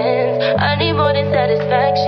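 Background music: a song with a sung vocal over held bass notes.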